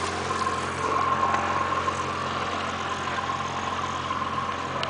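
Boat engine running with a steady hum, with water splashing as a landing net scoops a fish out of the lake in the first seconds.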